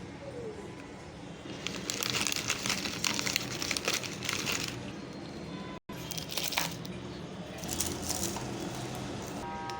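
Plastic snack wrapper crinkling in bursts as it is handled, loudest from about one and a half to five seconds in and again briefly near the middle and end.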